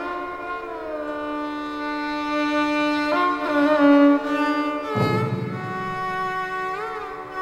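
Carnatic violin playing a slow melodic phrase of long held notes with sliding, wavering ornaments (gamakas). A low rumble joins about five seconds in.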